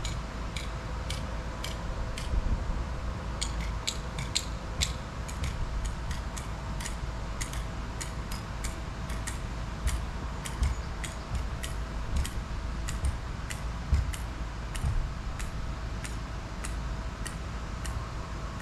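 Steady hum and low rumble of an inflatable slide's electric blower, with many sharp irregular clicks over it, two or three a second, thickest a few seconds in.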